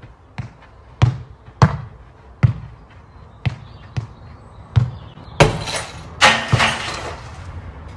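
A football kicked up repeatedly off the foot: a string of sharp thuds, roughly one a second. A little past halfway come two longer, louder, noisy sounds, the second the longer.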